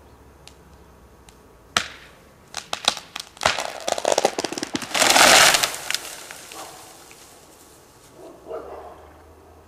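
Pine tree giving way after its final axe cut: one sharp crack, then a quick run of snapping cracks as the trunk breaks, then the loud crash of the trunk and branches hitting the ground, dying away over about a second.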